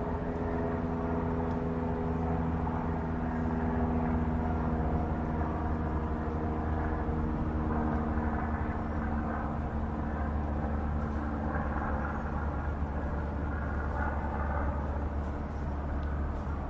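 A steady low engine drone: a deep rumble under several held hum tones.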